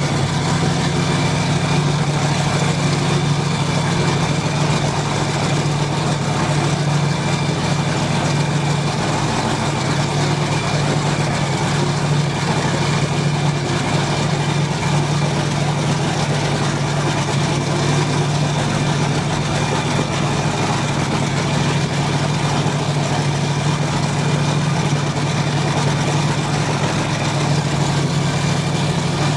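Racing powerboat engines idling: a steady, low drone that holds an even pitch and level throughout.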